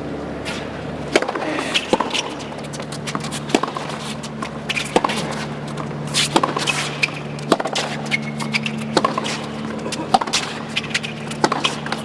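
Tennis baseline rally on a hard court: racket strings hit the ball about every one and a half seconds, with fainter ticks between the hits, over a low steady hum.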